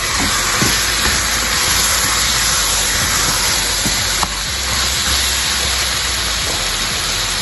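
Raw chicken pieces sizzling in hot oil with potato, carrot and onion in a pressure cooker pot as they are stirred with a spatula: a steady hiss.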